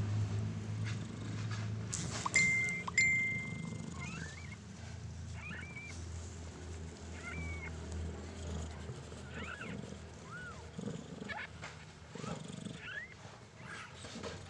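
Newborn Persian kittens mewing: thin, high cries that rise and fall, about one a second from about four seconds in, over a low steady rumble. A couple of sharp knocks come two to three seconds in.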